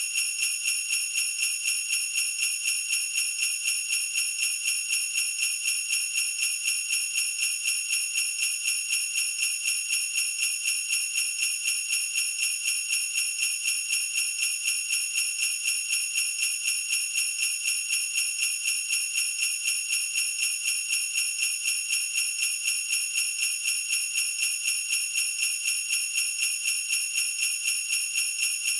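Jingle bells shaken in a steady, fast, even rhythm, giving a continuous high-pitched jingling.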